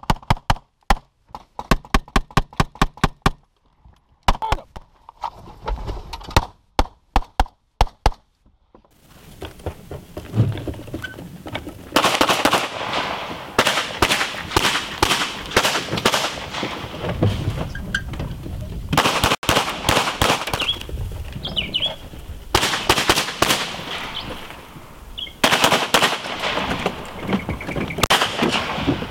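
Handgun fired in fast strings from inside a car, about four shots a second with short pauses between strings. From about nine seconds in, more shots come in clusters over a steady rushing background noise.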